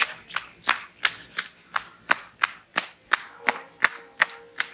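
Footsteps of a person running at a steady pace, sharp even footfalls about three times a second.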